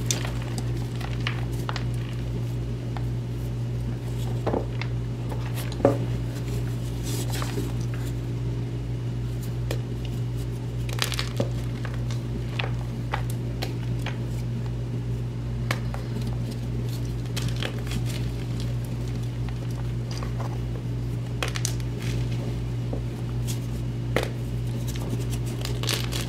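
Hands squeezing and crushing soft reformed chalk and magnesium gym chalk blocks into powder in a plastic basin. Irregular crunches and crumbles sound as the blocks break, the sharpest about six seconds in, over a steady low hum.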